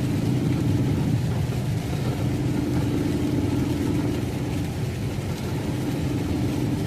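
Steady engine and road noise inside a moving truck's cab, a low rumble with a drone that fades and comes back, driving in rain.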